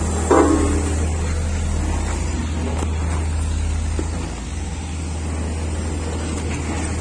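Heavy diesel construction machinery running steadily with a low, even engine hum. A brief higher-pitched sound, the loudest moment, comes about half a second in.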